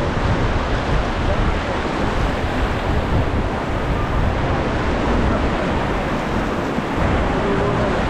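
Whitewater of the Beas River rapids rushing past the raft, a loud steady rush of water.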